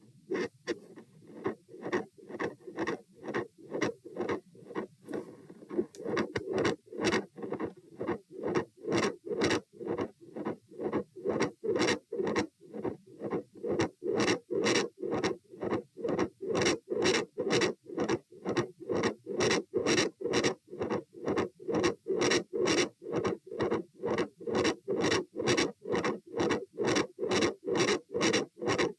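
Heartbeats heard through an electronic stethoscope pressed to the chest: a steady, regular run of beats with a continuous rushing sound between them, growing louder about six seconds in.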